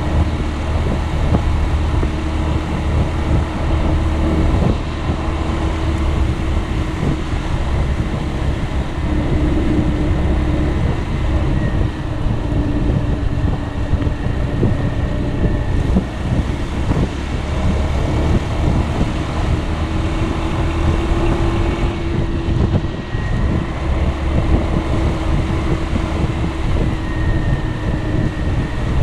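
Piaggio Beverly 300 scooter's single-cylinder four-stroke engine running under way, its pitch drifting up and down gently with road speed, over a steady rush of wind on the microphone.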